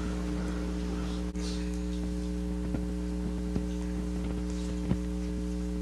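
Steady electrical hum from the mosque's sound system, several constant tones together, with a few faint clicks and shuffles from worshippers bowing in prayer.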